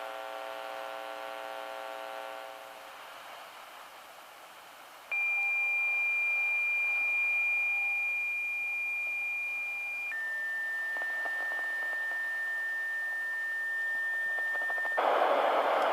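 NOAA Weather Radio broadcast over an Eton FR370 radio's speaker, putting out odd tones the listener could not make sense of. A buzzy hum fades out over the first few seconds. Then a steady high tone holds for about five seconds, steps down to a slightly lower steady tone for another five, and gives way to a louder rush of static hiss near the end.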